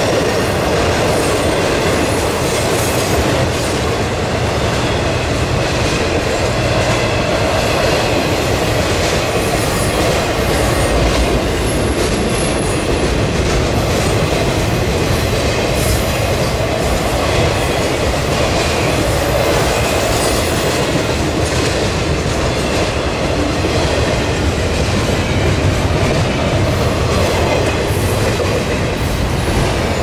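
Intermodal freight train cars loaded with containers and trailers rolling past at speed, a steady, unbroken rumble and clatter of steel wheels on the rails.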